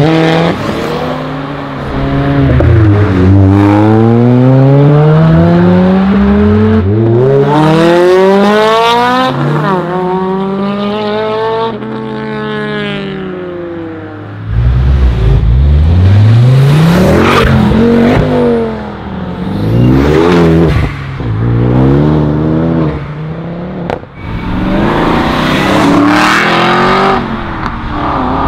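Performance cars accelerating hard away one after another. Each engine revs up through the gears, its pitch climbing and then dropping at each upshift, with short dips in level between cars.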